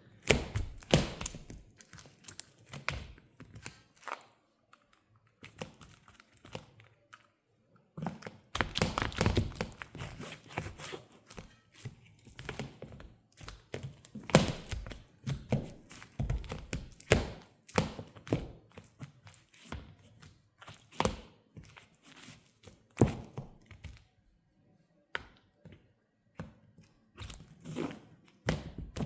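Mule shoes stepping and stomping on a hard floor, the soles sticky with crushed banana: irregular thunks and taps, about one or two a second, with a quick run of them about a third of the way in.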